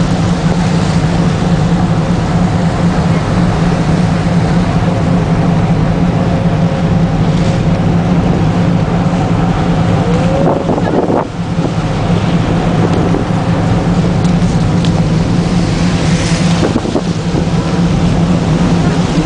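Icebreaker ship's steady low engine drone as the hull pushes through sea ice. A few short crunches are heard as the ice breaks against the hull.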